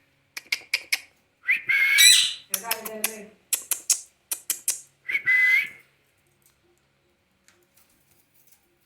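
Pet parrot whistling two short gliding notes, with sharp clicks and a brief chattering call between them; the sounds stop about six seconds in.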